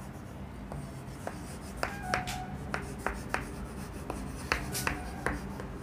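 Chalk writing on a chalkboard: short, irregular taps and scrapes as letters are written out, with brief chalk squeaks about two seconds in and again near the end.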